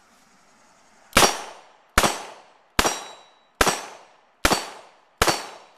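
Six shots from a Smith & Wesson Model 10-6 .38 Special revolver, fired with light loads at an even pace a little under a second apart, starting about a second in. Each shot is a sharp crack followed by a brief echo.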